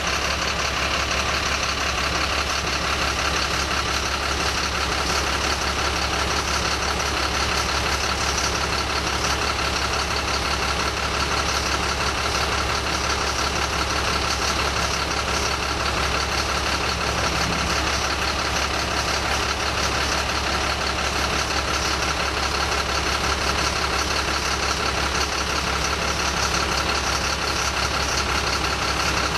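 Bucket truck's engine idling steadily, a constant low hum that does not rev or change.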